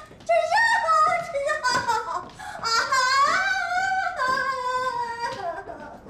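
A drunk woman singing in a high voice, drawing out long held notes.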